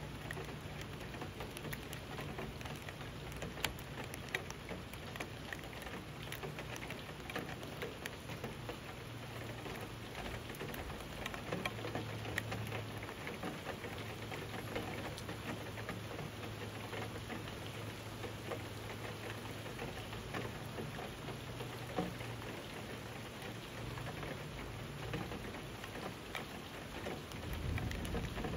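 Steady rain falling, an even hiss of rain on a surface with many small drop ticks and the odd louder drop.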